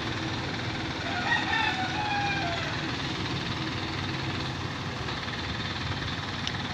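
Boom truck's engine running steadily as its crane holds a suspended marble slab. From about a second in, a faint high tone with overtones sounds for under two seconds and drops slightly in pitch as it fades.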